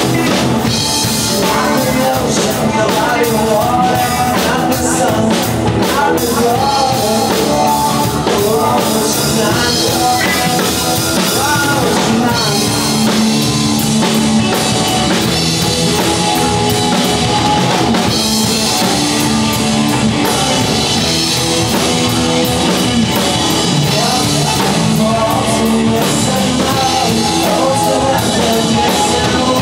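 Live rock band playing: electric guitars, bass and drum kit in a steady loud rock groove.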